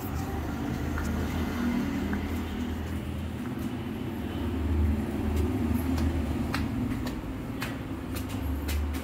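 Steady low rumble of busy street traffic, with light ticks about once a second in the second half as footsteps go up concrete stairs.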